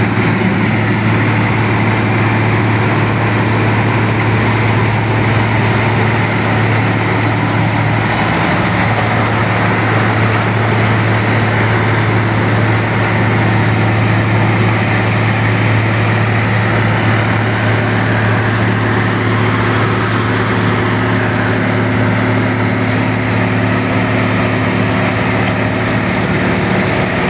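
An engine running steadily at constant speed for the whole stretch: a loud, unchanging low hum under a dense mechanical noise, with no revving or stops.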